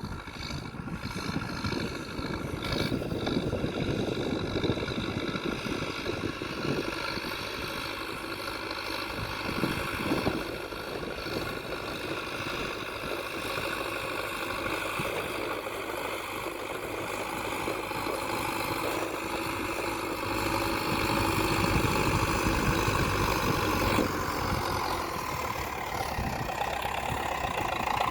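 Tractor engine running steadily while pulling a cultivator through a field; its note shifts slightly near the end.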